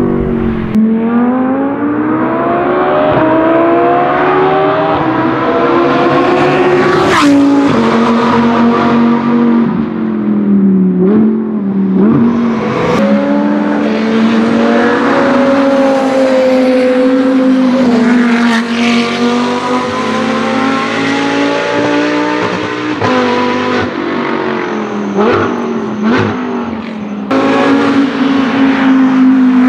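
Audi R8 LMS GT2's 5.2-litre V10 racing engine at speed on track, its revs climbing and dropping again and again through gear changes. Several sharp cracks come on the shifts.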